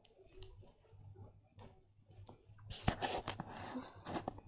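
Handling noise: faint at first, then from about three seconds in a rustling with several sharp clicks as the plush toy pony is moved about on the cloth pillow.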